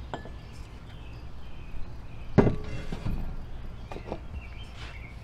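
Steel parts of a homemade log clamp being handled on a plywood bench: a few separate knocks. The loudest comes about two and a half seconds in, with a brief metallic ring.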